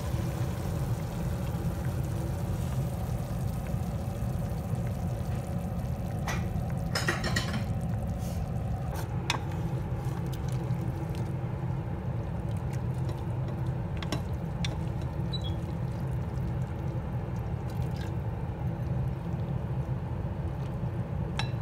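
Stir-fried morning glory and its sauce sliding, dripping and pouring from a tilted enamel pot into a bowl, with a few short knocks and scrapes of a wooden spatula against the pot. A steady low hum runs underneath.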